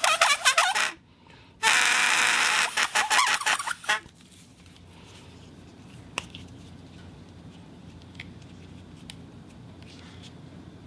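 Rubber squeeze whistle sounding: squeaks that waver in pitch, a short pause, then a longer, breathier squeal lasting about two seconds that stops about four seconds in. A few faint clicks follow.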